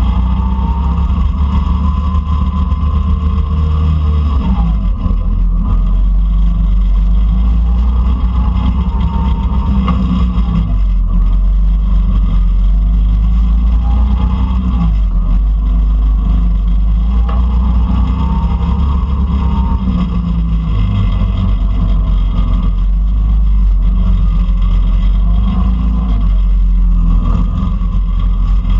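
Go-kart engine running continuously at speed over a heavy low rumble, its pitch repeatedly rising and falling as the kart speeds up and slows around the track.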